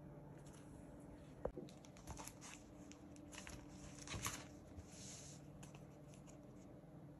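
Faint crinkling, rustling and tearing of packaging as something is handled and unwrapped, with scattered clicks. A sharp knock comes about a second and a half in, and a louder crinkle follows around four seconds in, over a low steady hum.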